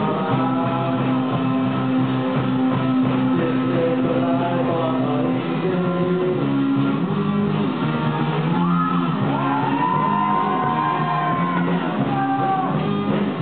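Rock band playing live: electric guitars and drums under a singer singing and shouting into a microphone, with one long held note from about nine to eleven seconds in.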